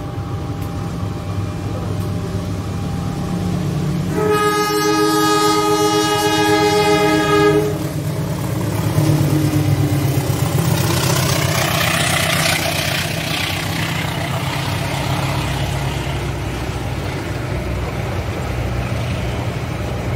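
Diesel locomotive horn sounding one long, steady blast of about three seconds as the train approaches. The double-headed diesel locomotives then pass with an engine rumble and wheel-on-rail noise, followed by the passenger carriages rolling by.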